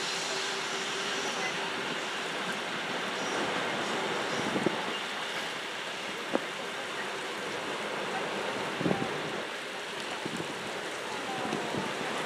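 Small sea waves washing on a rocky shore with wind on the microphone, while an intercity train hauled by an E656 electric locomotive fades out in the distance over the first couple of seconds. A few short sharp knocks stand out.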